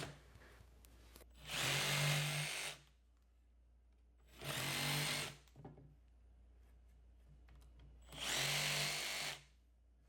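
A handheld power tool working wood, run in three short bursts of about a second each with pauses in between.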